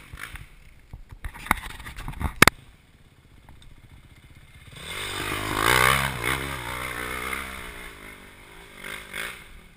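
Two sharp knocks about a second and a half and two and a half seconds in, the second one loud. Then an enduro dirt bike's engine revs up and down on a steep forest climb, swelling to its loudest in the middle before fading away.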